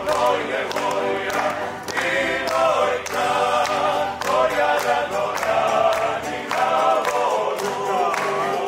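A group of voices singing together in chorus, with sustained notes that waver in pitch.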